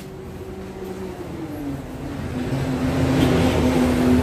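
An engine running with a steady hum that drops in pitch about a second and a half in, then grows louder.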